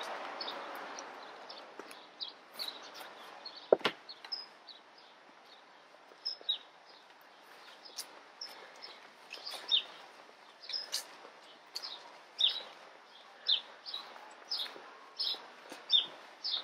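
Small songbirds chirping over and over with short high calls, with a single thump about four seconds in.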